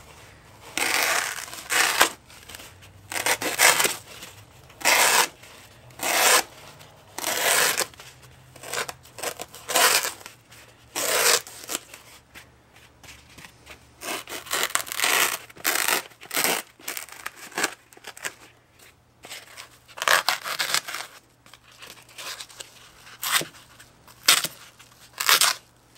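The thin blade of a Smith & Sons Shoal fixed-blade knife slicing through a foam pool noodle: a series of short cutting strokes at uneven intervals, some in quick pairs and some separated by pauses of a few seconds. The blade passes through the foam easily.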